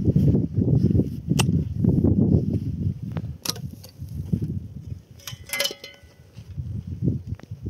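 Hand digging in stony soil with a shovel and pick: the scrape and crunch of dirt and stones, sharp knocks of the metal blade on rock, and a brief ringing metal clatter about two-thirds of the way in.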